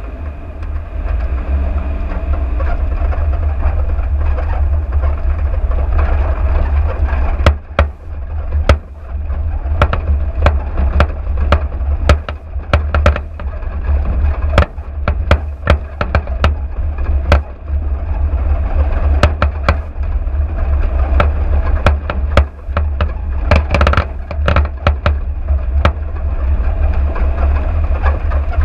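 Car driving over a rough, stony dirt track: a steady low rumble with sharp knocks and rattles from the bumps, coming thick and fast from about seven seconds in.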